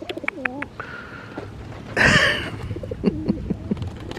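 Pigeons cooing in short wavering calls, with a brief noisy rush about two seconds in that is the loudest sound.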